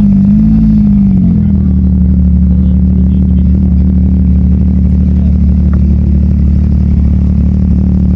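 A loud sports-car engine idling, its revs wavering slightly in the first second or so and then holding steady.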